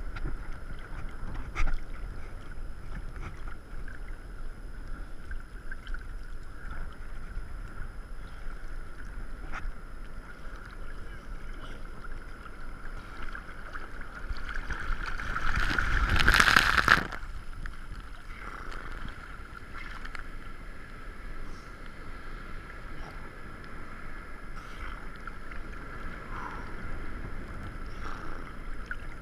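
Water sloshing and lapping against a camera held at the water's surface. A louder rush of water comes about fifteen seconds in, lasting a couple of seconds, as a wave swells past.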